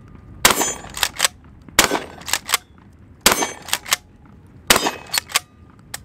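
TriStar Cobra III Marine 12-gauge pump-action shotgun fired four times, about a second and a half apart. Each shot is followed by two or three sharp clacks as the pump action is worked back and forward.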